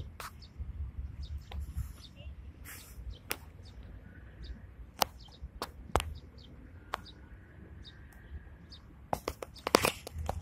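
Mallards preening close by: irregular sharp clicks and rustles of their bills working through their feathers, with a quick cluster of louder clicks near the end, over a low wind rumble.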